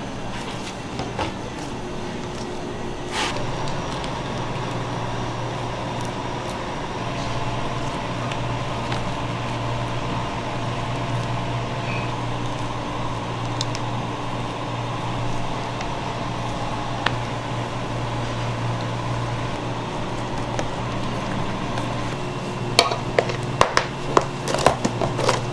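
Steady low mechanical hum of kitchen equipment, with a quick run of light clicks and knocks near the end as plastic containers are handled on the counter.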